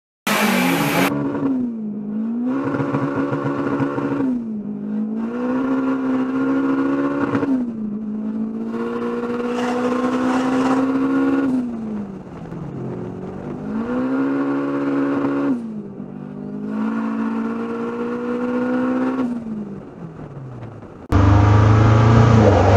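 Turbocharged K24 four-cylinder in an Acura RSX accelerating hard through the gears, heard from inside the car. The engine note climbs steadily through each pull and drops sharply at each of several gear shifts. About two seconds before the end, a sudden cut brings a much louder, rougher full-throttle rev with a heavy hiss as the car begins a burnout.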